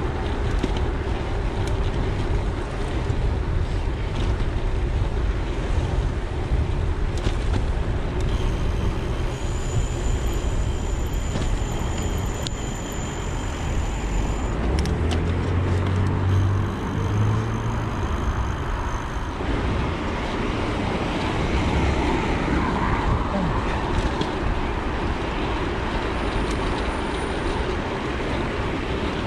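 Steady wind and road rumble from a gravel bike riding along town streets, picked up by a handlebar-mounted action camera, with passing car traffic. A louder low rumble comes through about halfway, and a faint thin high whine comes and goes twice in the middle.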